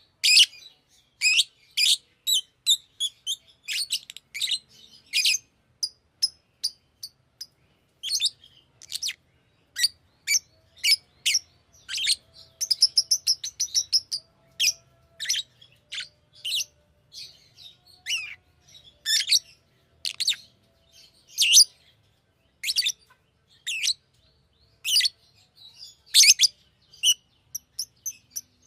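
Fischer's lovebird chirping: a steady run of short, shrill chirps, with a longer warbling trill about twelve seconds in.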